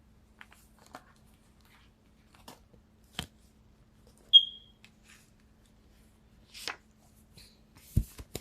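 Tarot cards being handled and shuffled: scattered soft taps and card snaps with a short rustle near the end. One brief high-pitched ping about four seconds in is the loudest sound, and a faint steady hum runs underneath.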